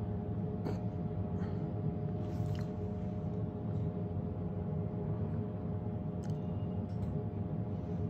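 A steady low hum with a few faint, short clicks scattered through it.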